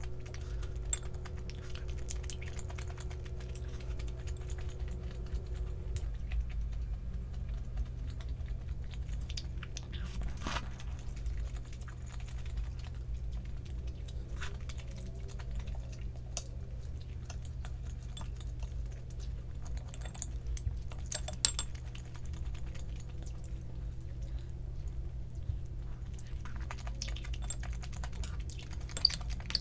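Scattered light clicks and taps, a few sharper ones standing out, over a steady low hum; a faint steady tone stops about six seconds in.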